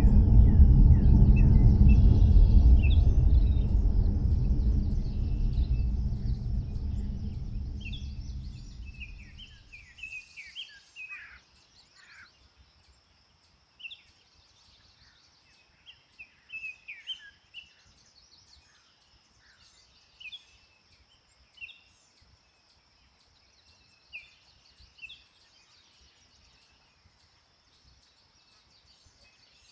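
A deep rumble fades away over the first ten seconds or so. Birds then chirp, with short falling notes every second or two, over a faint steady high hiss.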